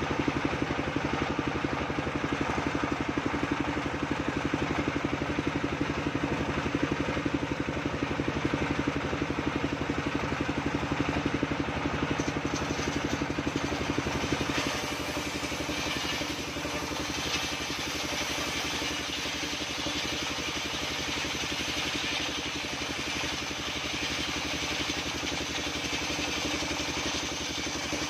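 Homemade engine-driven table circular saw running steadily while its blade rips coconut wood. From about halfway a higher hiss from the blade in the wood strengthens as a long beam is fed through.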